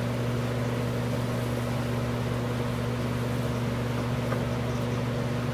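Steady electrical or mechanical hum, like a running fan or motor, holding one even pitch and level.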